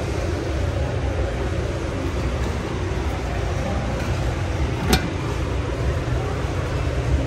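Steady low rumble and murmur of store ambience, with a single sharp click about five seconds in.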